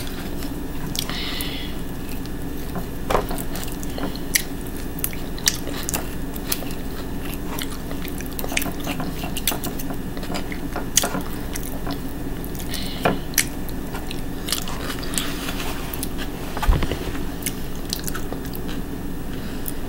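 Close-up chewing and mouth sounds of someone eating a meal of ham, potato salad, mac and cheese, kale and cornbread, with scattered short clicks over a steady low hum. There is a louder knock near the end.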